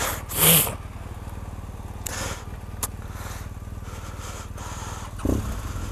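Motorcycle engines idling with a steady low rumble, with a short hiss about half a second in and a low knock near the end.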